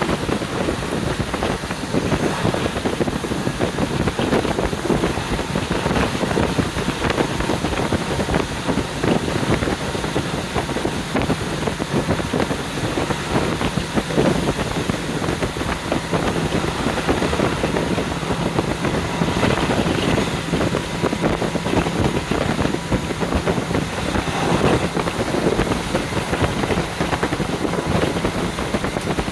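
Wind rushing in through the open window of a moving KiHa 40 diesel railcar, buffeting the microphone over the train's running noise. A steady low hum joins about halfway through.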